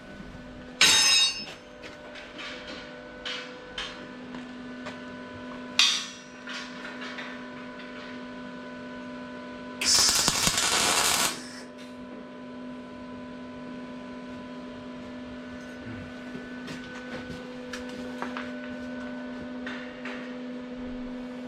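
Steel round bar ringing under hammer blows and clinking as it is handled: a loud ringing strike about a second in, another near six seconds, and lighter knocks between. About ten seconds in comes a harsh burst of noise lasting just over a second, over a steady low hum.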